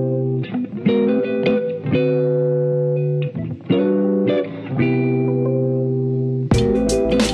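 Background music: guitar chords played with plucked attacks. About six and a half seconds in, drum hits and a fuller bass come in.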